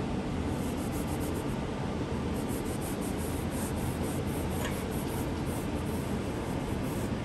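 A cloth rag rubbing wet paint off a stretched canvas. It makes a quick run of short scrubbing strokes, several a second, starting about two seconds in, over a steady low rumble.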